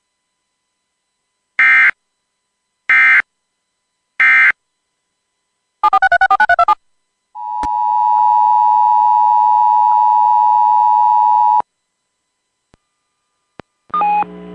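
Emergency Alert System SAME header: three short identical bursts of data tones about a second apart, then a short warbling burst, then a steady attention tone for about four seconds. Together they mark the start of a new emergency alert broadcast.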